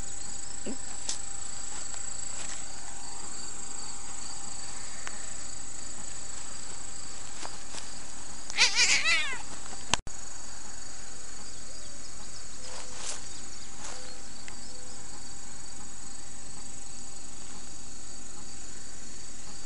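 Domestic cat meowing, a short run of calls about nine seconds in, over the steady chirring of crickets. The sound drops out for an instant just after.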